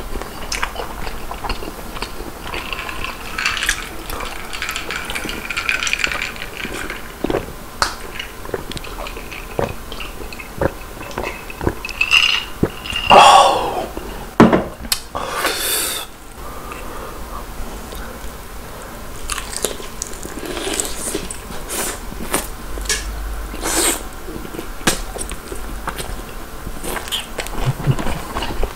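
Close-miked chewing and crunching of crispy fried chicken, with wet mouth clicks. In the middle come louder gulps from a glass and a falling, sigh-like exhale.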